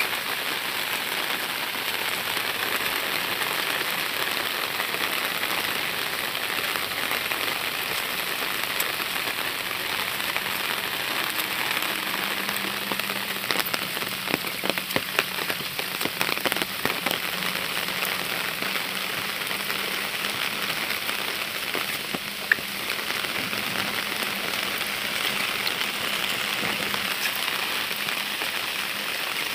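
Heavy rain falling steadily on leaves and a wet brick path, an even hiss with sharp drop hits scattered through it. Around the middle a flurry of louder, closer drop hits comes through.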